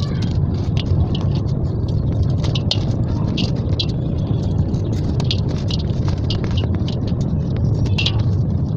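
Dry red sand cement chunks crumbled and crushed between the fingers over a metal bowl, giving irregular crisp crunches, several a second, as crumbs and powder drop onto the heap. A steady low rumble runs underneath.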